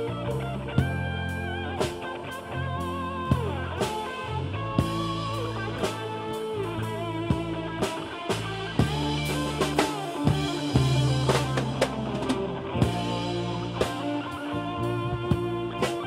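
Rock music: an electric guitar playing bent notes over a bass line and a steady drum-kit beat.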